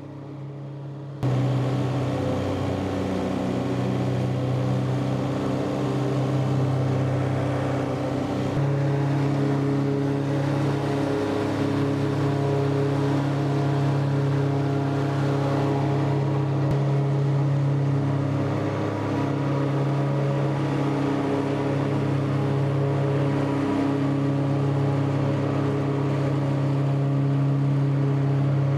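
John Deere 3046R compact tractor's diesel engine running steadily at mowing speed while driving a 12-foot Woods Turf Batwing rotary mower through tall grass. The level steps up sharply about a second in, and the tone shifts slightly around eight or nine seconds in.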